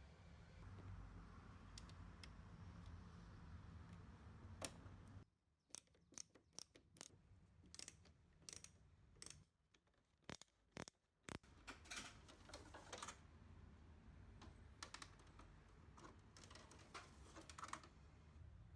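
Faint, irregular light clicks and taps in scattered clusters, starting about five seconds in and again near the end, over a low steady hum.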